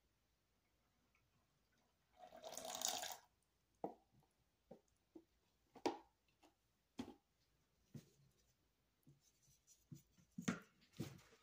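Faint handling noises from soapmaking utensils and containers: a brief scraping rustle about two seconds in, then scattered light clicks and knocks.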